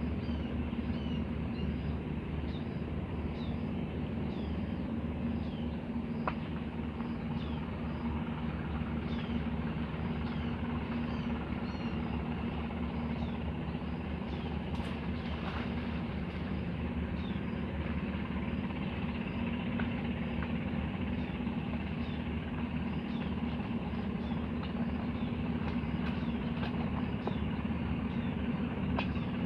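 A steady low motor drone, with a bird's short falling chirps repeated over it.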